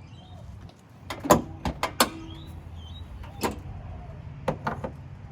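A car's bonnet being popped open: a series of sharp clunks and clicks from the latch and panels, the loudest about a second in, with a low steady hum beneath.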